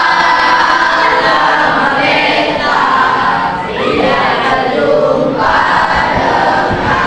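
A class of schoolchildren singing an Indonesian compulsory national song together, in long held phrases with short breaks between them.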